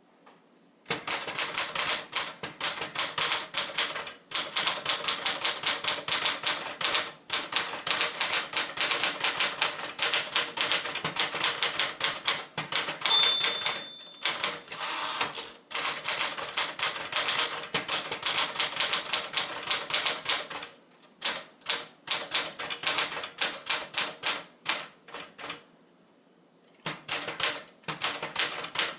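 Typing on a Sears Citation manual portable typewriter, a Smith-Corona built as a mechanical twin of the Galaxie: fast runs of sharp keystroke clacks broken by short pauses. A brief ringing tone sounds about halfway through.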